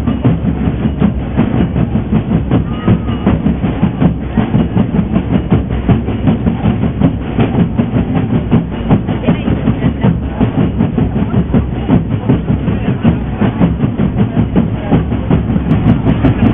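Boat engine chugging with a fast, steady beat.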